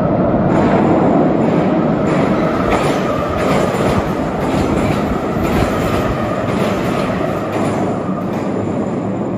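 Metro train passing close by in a tunnel: a loud, steady rush of wheels on rails with regular clicks, about two to three a second, as the wheels cross the rail joints.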